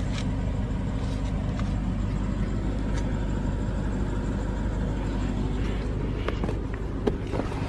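Car engine idling: a steady low hum, with a few faint light clicks over it.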